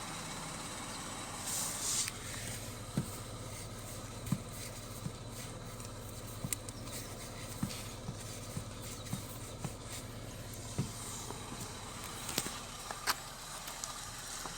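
Lexus RX 300's engine idling with a steady low hum, with scattered light clicks and knocks from hands working at the steering wheel.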